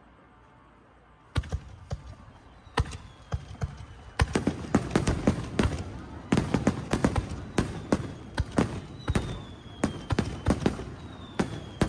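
Aerial fireworks bursting. A lone bang comes about a second in, then scattered reports build into a rapid barrage of bangs from about four seconds on, with several whistles falling in pitch.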